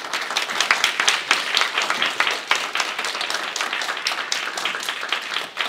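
Audience applause: many people clapping hands together.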